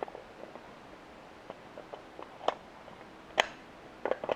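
Footsteps on dry leaf litter, pine needles and twigs: irregular crunches and snaps, the sharpest about three and a half seconds in and a quick cluster of them near the end.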